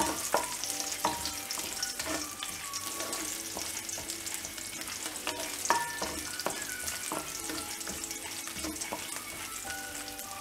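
Crushed garlic cloves with cumin, mustard seeds and dried red chillies sizzling in hot oil in a kadai. A wooden spoon stirs them, with small scrapes and knocks against the pan.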